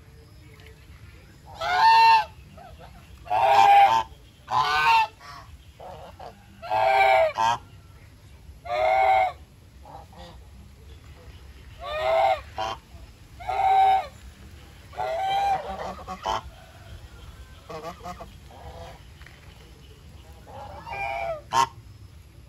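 Domestic geese honking: about ten loud, drawn-out calls in irregular succession, a second or two apart, with brief gaps between them.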